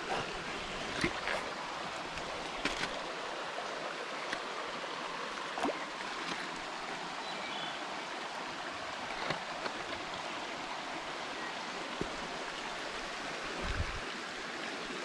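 Small rocky creek running over stones and riffles: a steady rush of water, with a few light knocks scattered through as boots and hands move over the rocks.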